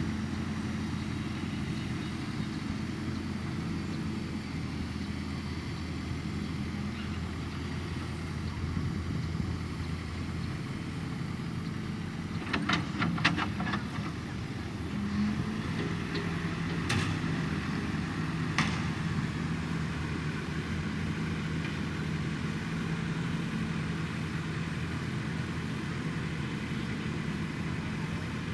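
A heavy construction vehicle's engine running steadily with a low hum, probably a diesel. About halfway through there is a quick run of clicks, then two sharp clicks a few seconds apart.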